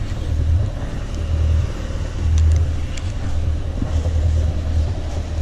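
Motor vessel's engine running, a deep low rumble that swells and fades about once a second over a steady hum.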